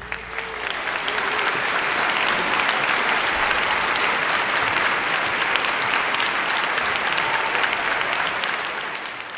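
Audience applauding at the close of a live band recording, fading out near the end.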